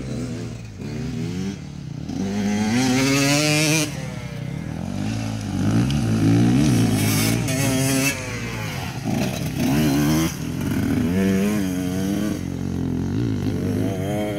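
KTM enduro dirt bike engine revving hard, its pitch climbing through the gears and then dropping away as the throttle is shut, over and over.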